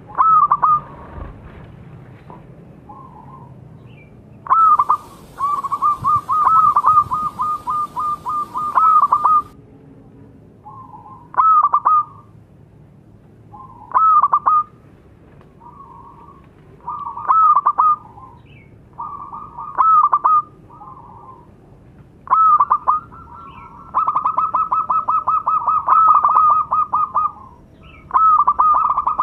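A small-voiced local zebra dove (perkutut) cooing. Phrases of quick rippling notes come every couple of seconds, and two longer runs last several seconds each.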